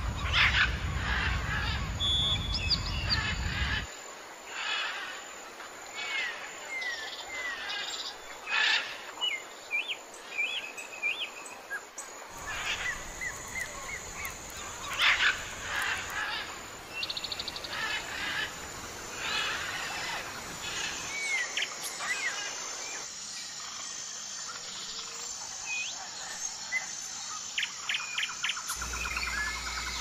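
Wild birds calling and chirping: many short notes and quick rising and falling whistles in quick succession, with the background changing abruptly several times as different recordings follow one another.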